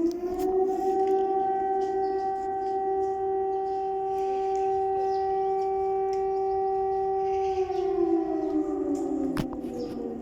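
Civil defence warning siren wailing: its pitch climbs to a steady held tone for about seven seconds, then slowly falls away near the end.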